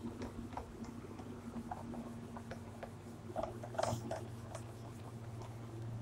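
Whiteboard being wiped clean with short, uneven rubbing strokes, loudest in a brief cluster near the middle, over a steady low hum.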